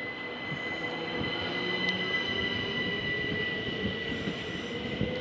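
Southeastern Class 375 Electrostar electric multiple unit moving through the station, its wheels squealing with several steady high-pitched tones over a running rumble, slowly getting louder.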